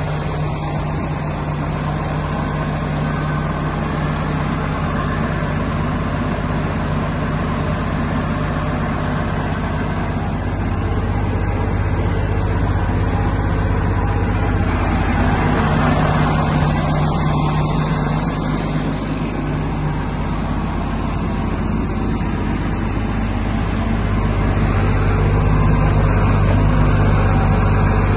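Wirtgen W 100 F cold milling machine's diesel engine running steadily, a constant low hum, swelling slightly a couple of times.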